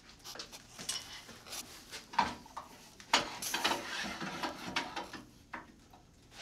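Wood shavings and metal tools being handled at a wood lathe: irregular clicks, clatter and rustling, with a louder scraping swish about three seconds in.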